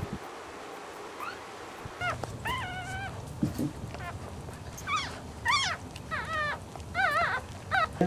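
Newborn Cavalier King Charles Spaniel puppy squealing in a string of short, high, wavering cries, starting about two seconds in, while its mother licks it clean just after birth.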